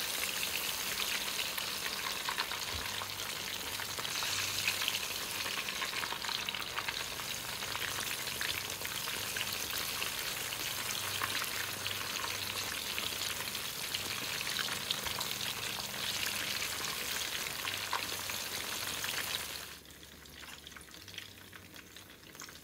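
Battered banana fritters deep-frying in hot oil in a wok: a dense, steady sizzle full of fine crackles, with a spatula stirring through the oil now and then. About twenty seconds in it cuts off abruptly to a much quieter background.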